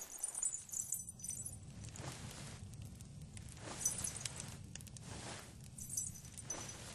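Slow footsteps, about one a second, with a light metallic jingle now and then, loudest about four and six seconds in, over a low steady hum.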